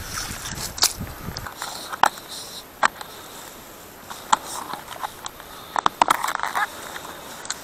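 Handling of a plastic tackle box of packaged vib lures: scattered sharp clicks and short rustles of plastic, with a brief crunchy scraping in the first second and a half.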